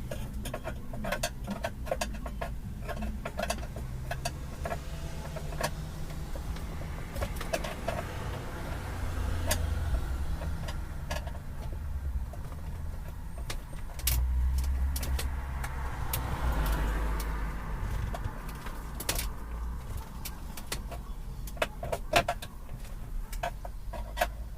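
Scattered small clicks and taps of a screwdriver backing out a mounting screw of the uConnect module, over a steady low rumble.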